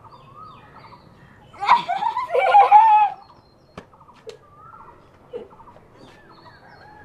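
A young woman's high-pitched squealing cries, lasting about a second and a half from roughly two seconds in, followed by a single sharp tap.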